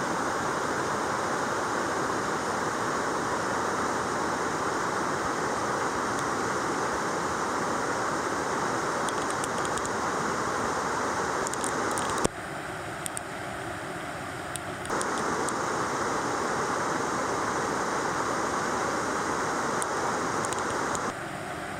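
Rushing water of a mountain stream and waterfall, a steady rush. About twelve seconds in it cuts abruptly to a quieter, thinner rush for a few seconds, then returns, and drops again near the end.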